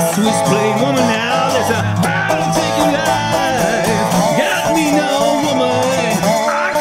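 Acoustic blues music led by guitar, its notes bending and sliding in pitch.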